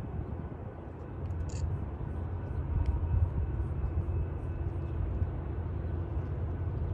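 Steady low rumble of an approaching Union Pacific EMD SD70AH diesel locomotive and its autorack train, still far down the line.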